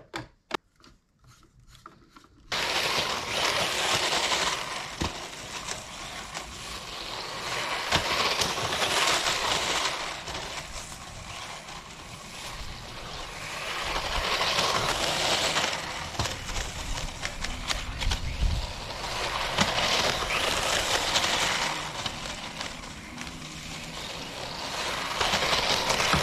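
3D-printed RC snow tank driving through snow: its plastic tracks churn and scrape the snow under a brushless motor, the sound swelling and fading about five times as it passes back and forth. A couple of seconds of faint handling clicks come before it starts.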